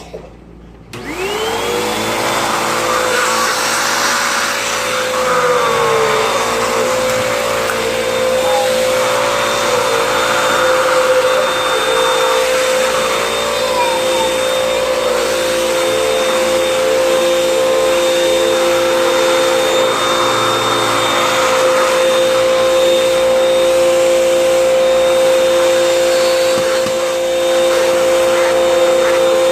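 Vacuum cleaner switched on about a second in, its motor spinning up to a steady, loud whine. It runs with a few rougher patches along the way, then starts to wind down at the very end as it is switched off.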